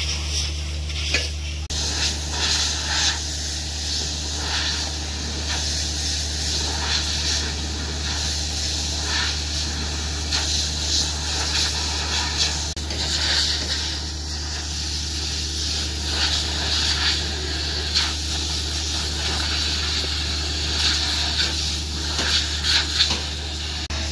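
Construction-site noise: a steady low hum under a constant hiss, with scattered short knocks and clatters.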